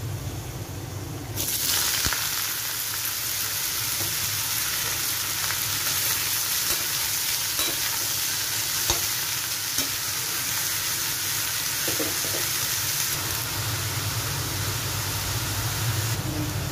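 Chopped gourd sizzling in hot oil in an aluminium kadhai, stirred with a steel spatula that knocks against the pan a few times. The sizzle comes on suddenly about a second and a half in, as the vegetable goes into the hot oil.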